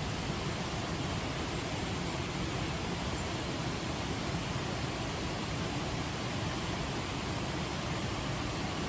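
Steady rushing water, an even hiss with no distinct drops or splashes standing out.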